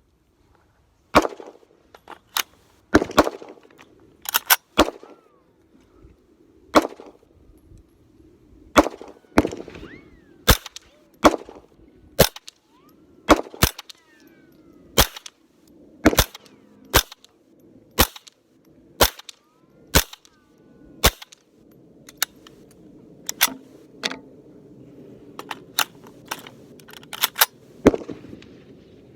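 About thirty .22 LR shots from a lightweight AR-15 with a .22 LR conversion kit and Faxon pencil barrel, fired semi-automatically. Some come singly about a second apart, others in quick strings of two to four.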